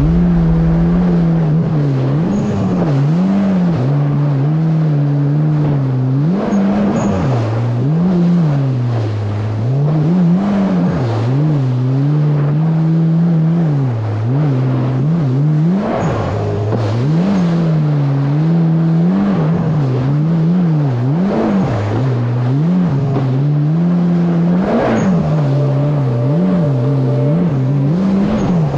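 Supercharged Yamaha GP1800R SVHO jet ski's engine running under way, its pitch rising and falling every second or two as the revs change.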